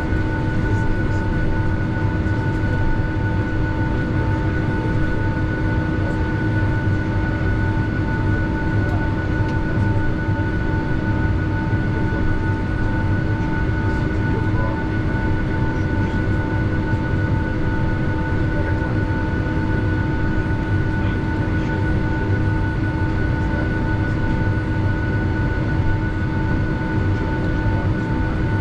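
Boeing 757 jet engines idling, heard from inside the cabin: a steady low rumble with a constant whine made of several even tones.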